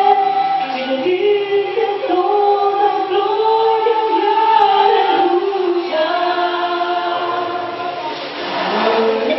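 A woman singing a slow melody of long held notes into a handheld microphone, over sustained instrumental accompaniment.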